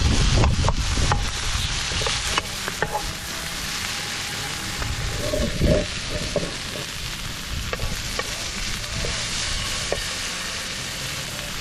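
Chicken stir-frying in a pan over a campfire, sizzling steadily, with the utensil clicking and scraping against the pan as it is stirred.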